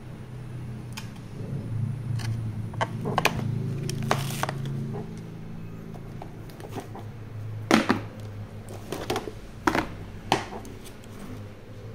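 Clicks, knocks and rattles of hard plastic as a dusty hard-shell case is opened and the old phones and lanyards inside are handled and shifted, with the sharpest knocks about two-thirds of the way through, over a low steady hum.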